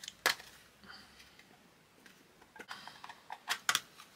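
Plastic case of a Fluke 12 multimeter being prised apart by hand: sharp clicks and snaps as the case halves come apart, one about a quarter second in and a cluster of several near the end.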